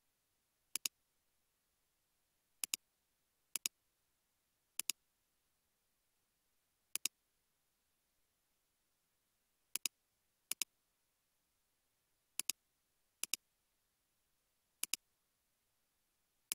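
Computer mouse button clicking about ten times at uneven intervals, each click heard as two quick ticks close together, with near silence between.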